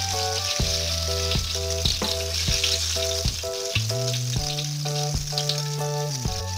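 Hot cooking oil sizzling in a wok, with scattered small pops, as fried purple eggplant halves are lifted out on a perforated steel skimmer. Background music plays over it: a repeating melody of short notes over a held bass.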